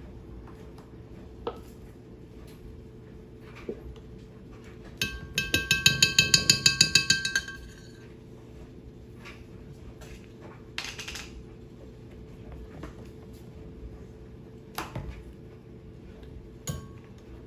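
A metal spoon tapped rapidly against a glass blender jar: about a dozen quick ringing clinks over some two seconds. A few single light knocks of the spoon and bottles on the jar and counter come before and after.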